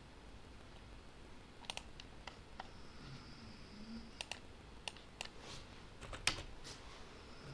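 Faint, scattered clicks of a computer mouse and keyboard, about a dozen at irregular intervals, the loudest about six seconds in.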